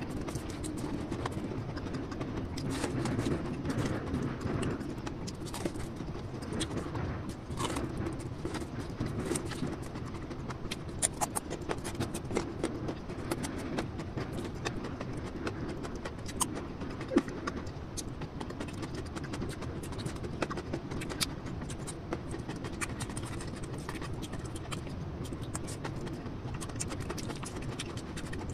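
Close-up eating sounds: chewing, with many small scattered clicks and taps of a metal spoon on the food and plate.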